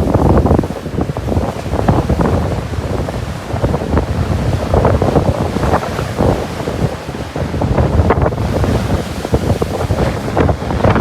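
Strong wind buffeting the microphone in rapid, gusty flutters over the rush of heavy surf breaking on the beach.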